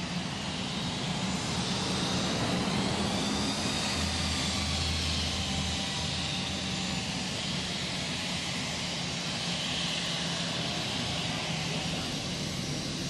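Jet airliner's turbofan engines running steadily: a high whine that slowly wavers in pitch over a low rumble.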